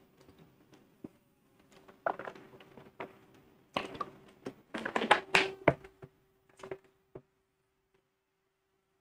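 A man drinking from a plastic water bottle close to a clip-on microphone: a run of gulps and swallows with knocks and rustles of the bottle being handled, busiest about four to six seconds in. A faint steady hum runs underneath.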